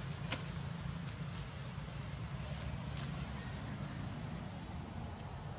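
Steady outdoor ambience: a constant high insect-like drone over a low rumble, with one faint click about a third of a second in.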